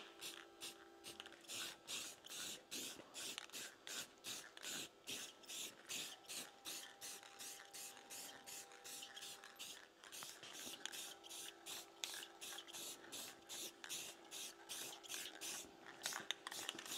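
Aerosol spray-paint can hissing in short rapid bursts, about three a second, with a faint steady hum beneath.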